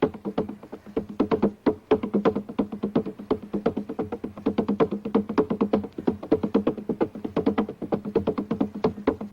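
Film soundtrack of hand drums: a fast, even beat of many strikes a second on two drums of different pitch.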